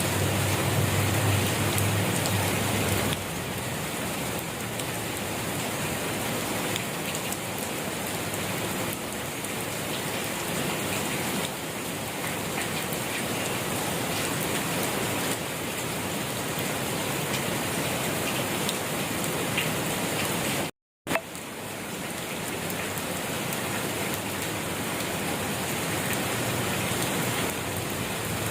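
Steady rain falling, a continuous even patter. About three quarters of the way through, the sound drops out completely for a split second and comes back with a click.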